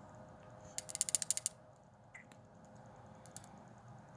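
Cap of a small glass facial-oil bottle being twisted open, giving a quick run of about ten sharp clicks, followed by a few single faint clicks.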